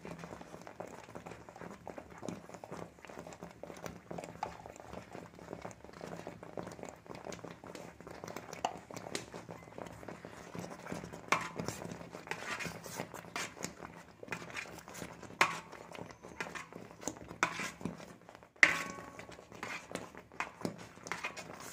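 A metal spatula stirring thick, boiling jackfruit halwa in a large uruli: sticky squelches and scrapes, with irregular clicks against the pan that grow more frequent in the second half. A sharp knock on the pan about eighteen seconds in is the loudest sound.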